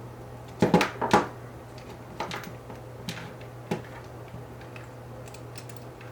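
Small hard plastic and metal kit parts clicking and tapping while the rear suspension arms and hinge pins of a radio-controlled car kit are handled and fitted. Two sharp clicks about a second in are the loudest, with a few fainter knocks and light ticks after, over a steady low hum.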